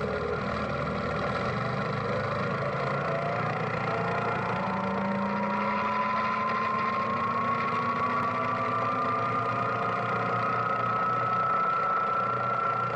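Suzuki KingQuad ATV running as it rides along, with a thin whine that climbs slowly and steadily in pitch from about three seconds in as the quad gathers speed.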